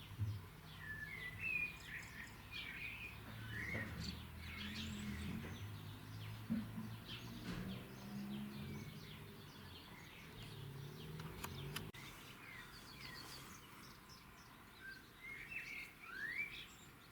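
Small birds chirping and twittering in short calls. Under them is a low hum that stops about two-thirds of the way through, along with a few sharp clicks or taps.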